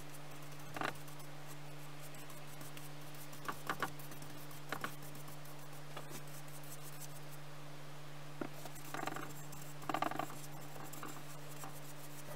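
A few short scratchy brush strokes and light knocks as finish is brushed onto a wooden bowl, over a steady low hum.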